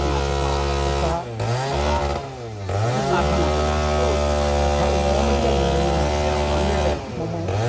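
A small engine running steadily, its pitch dipping and rising again around a second in, a couple of seconds in, and once more near the end, as the engine speed drops and picks back up.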